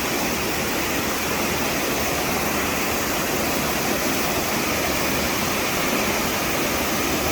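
A waterfall running: a steady, even rush of falling water.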